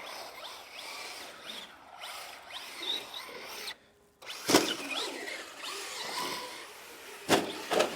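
Electric RC car driving on the concrete of a skate park: tyres scrubbing and the motor whining faintly, with two sharp knocks about four and a half and seven seconds in, and a brief cut-out just before four seconds.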